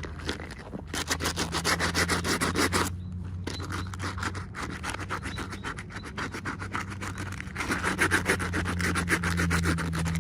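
Rapid, scratchy rubbing: many quick back-and-forth strokes, louder in two stretches (about a second in, and again near the end), over a steady low hum.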